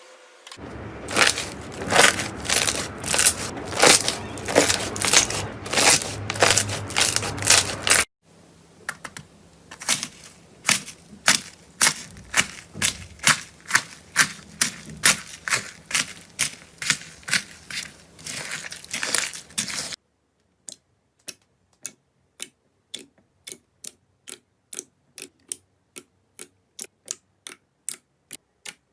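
Slime being pressed and worked, making rapid crackles and pops. The sound changes twice: a softer stretch of clicking begins about a third of the way in, and the last third has sharp separate pops, about two or three a second.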